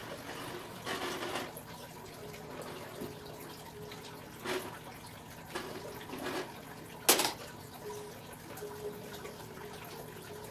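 Water sloshing and dripping in a few short splashes, with a sharp click about seven seconds in.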